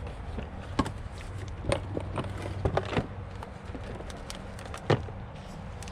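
Scattered light clicks and knocks, irregularly spaced, over a steady low hum.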